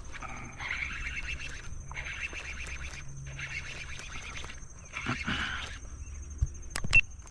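Wild animal calls repeating in roughly one-second bursts with short pauses between them, over a steady high-pitched tone. Two sharp clicks near the end are the loudest sounds.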